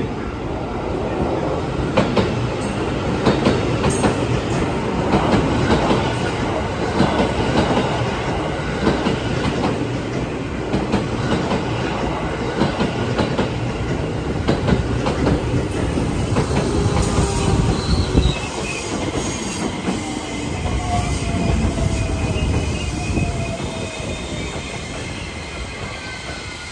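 JR West 223 and 225 series electric train pulling in and braking: wheels clatter over the rail joints, then a whine falls steadily in pitch as the train slows to a stop.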